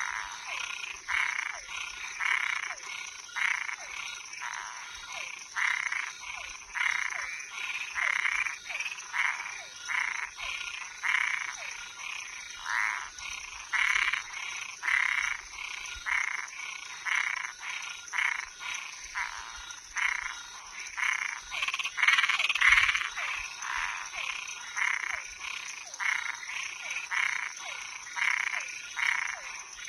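Night chorus of frogs and tree frogs, short croaking calls overlapping at about one or two a second, over a steady high-pitched hum.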